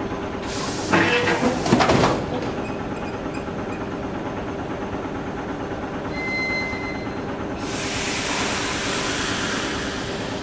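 ED4M electric train's sliding doors closing about a second in: a hiss of air and a couple of loud thuds as the door leaves shut. A steady hum from the standing train runs underneath, a short high tone sounds about six seconds in, and a long hiss starts about a second and a half later.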